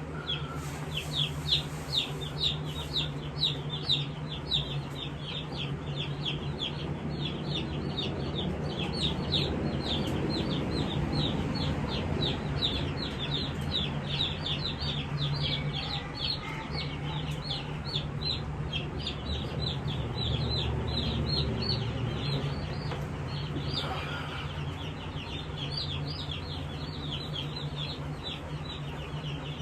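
A brood of Jumbo Cornish Cross meat chicks peeping continuously: many short, high, falling peeps, several a second, over a steady low hum.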